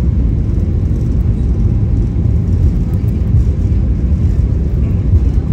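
Steady low rumble in the cabin of an Airbus A319 airliner taxiing after landing.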